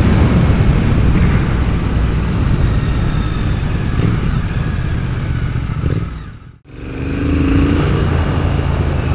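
Triumph Speed Twin's parallel-twin engine running under way through megaphone exhausts, with wind and road noise. The sound drops away for a moment about two-thirds of the way through, then picks up again.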